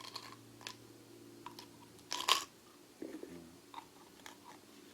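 Small metal parts and their packet being handled: a scattering of light clicks and crinkles, the loudest cluster a little past halfway, over a faint steady hum.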